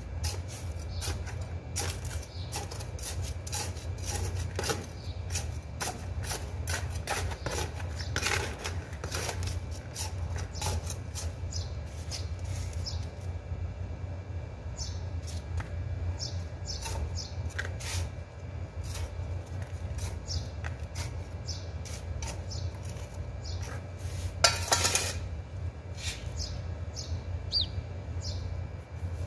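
Metal hand trowel scraping and digging into potting soil in a plant pot, many short scrapes and taps with a louder rasp near the end.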